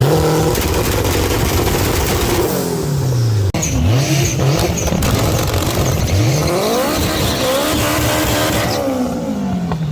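Honda S2000's four-cylinder engine revving, its pitch climbing and falling several times, with a brief break about three and a half seconds in.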